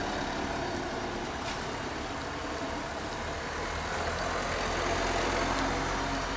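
Engine and road noise inside a moving vehicle, running steadily. The engine note grows a little louder and fuller from a bit past halfway.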